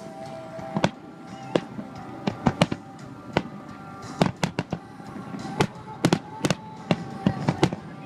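Aerial fireworks shells bursting in a rapid finale barrage, about twenty sharp bangs at uneven intervals, several in quick clusters. Music with held tones plays underneath.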